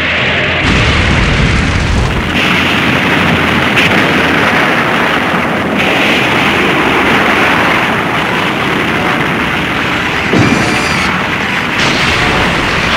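Film sound effects of explosions running together into a continuous blasting din, shifting abruptly at several cuts.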